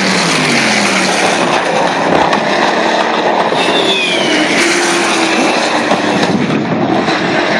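Historic racing cars passing at speed, each engine note falling in pitch as it goes by: a white open sports-racer just at the start, then a Ford GT40 coupe about four seconds in.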